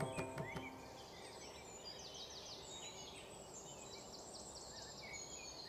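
Music with drum strokes ends about a second in. It gives way to faint outdoor ambience with birds chirping and giving short rapid trills.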